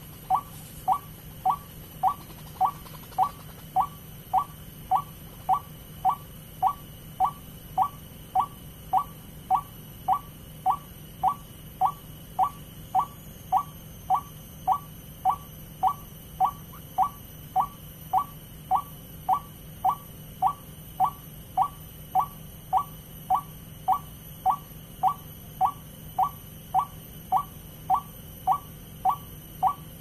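White-breasted waterhen (ruak-ruak) call played from a Bluetooth speaker as a trapping lure: one short rising note repeated at an unvarying pace, about one and a half a second.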